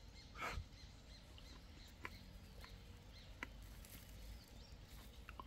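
Quiet outdoor ambience with faint bird chirps, a few soft clicks, and one short, louder noise about half a second in.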